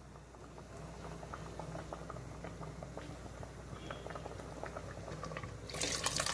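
Thick sambar boiling in an open pot, with many small bubbles popping at the surface. Near the end, a louder wet pouring noise as cooked dal is tipped into the pot.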